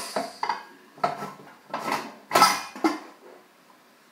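Stainless steel pressure cooker lid being twisted free and lifted off. Metal clanks and scrapes against the pot's rim in about half a dozen short clatters over the first three seconds.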